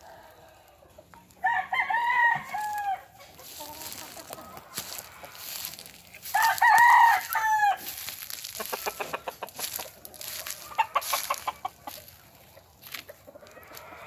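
Gamefowl roosters crowing, two loud crows a few seconds apart, followed by runs of quick short clucks.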